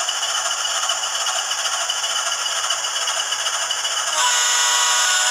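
MRC DCC sound decoder in an HO-scale Athearn rotary snow plow, playing through its small speaker: a steady hiss-like running sound, then about four seconds in a horn blast of several notes at once, lasting about a second.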